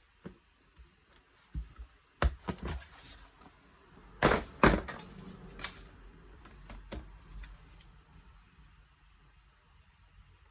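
Handling noise from a MacBook Pro laptop being moved and set up to power on: a scatter of sharp clicks and knocks, the loudest pair about four and a half seconds in.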